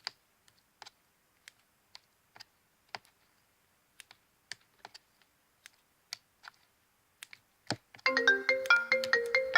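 Faint, scattered sticky clicks and pops of slime being handled. About eight seconds in, a mobile phone starts ringing with a melodic ringtone, the loudest sound.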